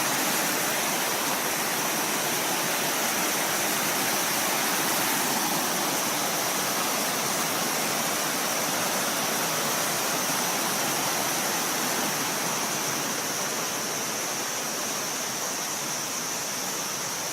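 Kuang Si waterfall's water cascading down, a steady, unbroken rush.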